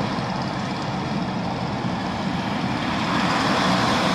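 Steady road noise from inside a car driving on a flooded, rain-soaked highway: tyre hiss on the wet road, rain and engine rumble, getting a little louder near the end.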